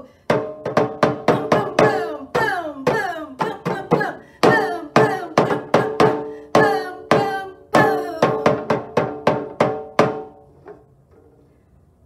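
Shallow frame hand drum beaten rapidly with a mallet, about three uneven strokes a second, each ringing briefly. The strokes stop about ten seconds in.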